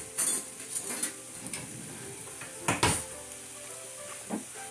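Chicken pieces sizzling in a stainless steel skillet, a steady frying hiss, with a few sharp clinks and knocks of kitchen utensils, the loudest a little under three seconds in.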